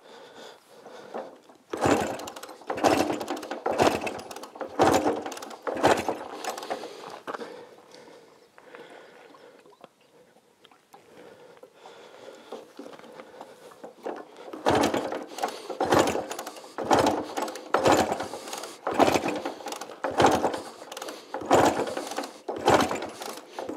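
1937 Scott two-stroke twin being kicked over again and again without catching: a clatter of the kick-start and the engine turning over about once a second. About five kicks, then a pause of several seconds, then about ten more. The engine is on choke and has been tickled with fuel.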